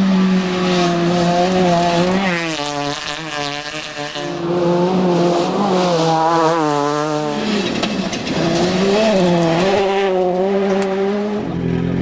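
Rally cars driven flat out on a gravel stage: engines revving hard, their pitch climbing and falling again and again with gear changes and lifts as the cars pass by.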